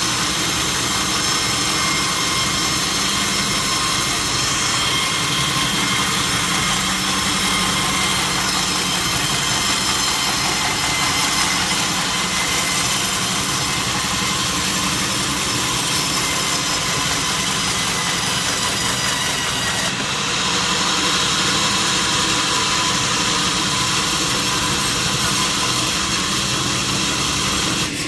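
Sawmill saw machinery running steadily, a loud mechanical drone with a high whine, as it cuts teak logs; the sound changes abruptly about twenty seconds in.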